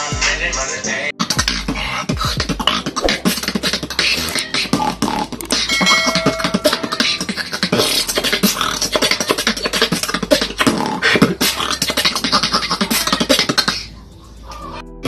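A man beatboxing: fast vocal-percussion kicks, snares and hi-hat clicks made with the mouth, with a short pitched tone in the middle. About a second in it cuts in abruptly from hip hop music, and it falls away briefly near the end.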